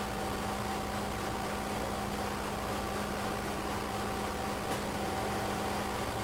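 Steady hum and hiss of running industrial plant machinery: a constant low drone with a fainter higher tone above it.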